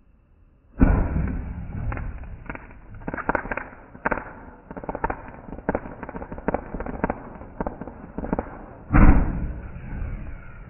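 Ground-standing consumer firework going off: a loud bang about a second in, then a run of irregular crackling pops, and a second loud bang near the end.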